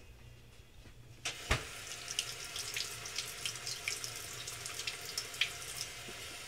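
Kitchen faucet turned on about a second in, water running steadily into the sink and splashing as an apple is rinsed under the stream. A sharp knock comes just as the water starts.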